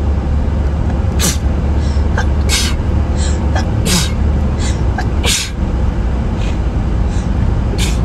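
A woman sneezing repeatedly in a run of allergy sneezes: about five sharp sneezes, with smaller catches of breath between them, over a steady low rumble.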